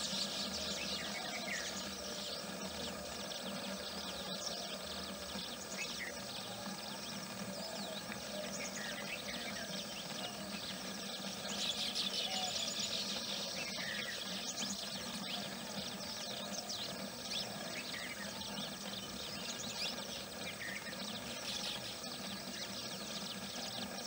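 Baya weaver colony chattering: a dense, continuous high-pitched twittering, busiest near the start and again about twelve seconds in, with short downward-sliding call notes every couple of seconds.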